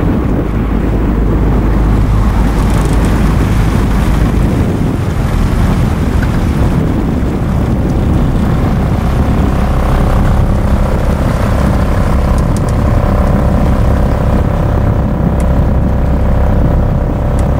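Steady low rumble of a motorboat engine running, mixed with wind on the microphone. About ten seconds in, a few steady higher tones join it.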